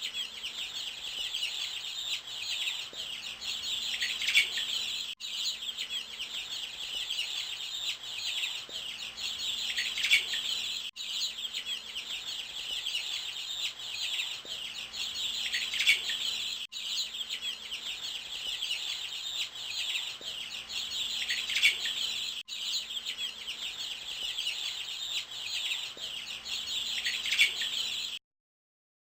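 House sparrows chirping: many quick, overlapping chirps. The recording loops about every six seconds, with a brief break at each restart, and stops shortly before the end.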